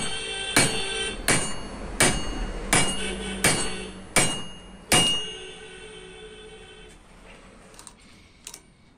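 A hammer strikes a steel rod set in the centre bore of an upright crankshaft's flange eight times, about 0.7 s apart. Each blow gives a sharp metallic clang that rings briefly. The blows stop about five seconds in, and a couple of faint taps follow near the end.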